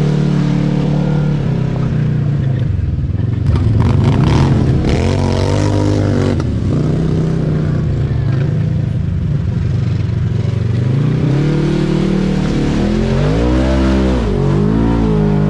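Polaris Sportsman 1000 ATV engine pulling through mud, its pitch rising and falling with the throttle twice. Mud and water splash and spatter against the machine, most about four to six seconds in.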